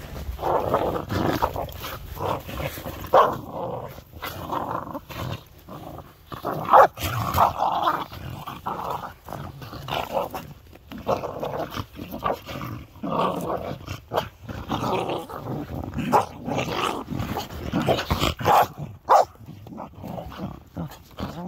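Two corgis play-fighting, growling and yapping at each other almost without a break, with frequent sharp barks throughout.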